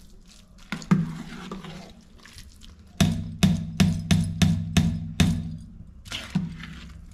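A metal ladle knocking against a brass cooking pot while stirring thick rice-and-jaggery kheer. There is one knock about a second in, then a quick run of about seven knocks a few tenths of a second apart, and one more near the end. Each knock rings briefly with a low hum from the pot.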